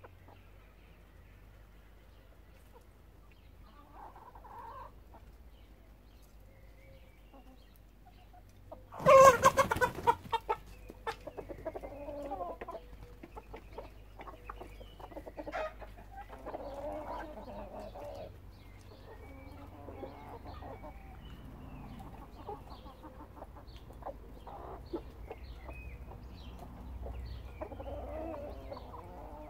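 A flock of backyard chickens clucking intermittently. About nine seconds in, one bird gives a single loud call, by far the loudest sound, which trails off within about two seconds.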